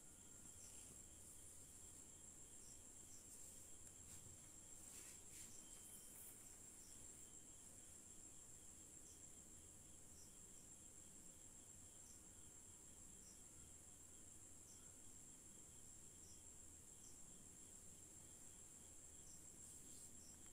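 Near silence, with a faint, steady high-pitched insect drone and short chirps every second or two.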